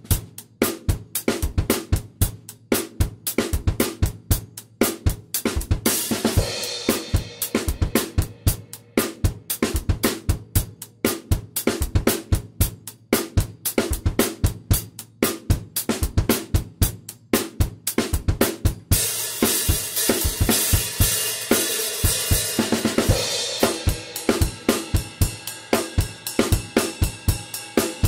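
Acoustic drum kit played alone in a steady rock beat of kick, snare and hi-hat. Meinl cymbals wash in about six seconds in and again from about nineteen seconds, where the playing turns fuller.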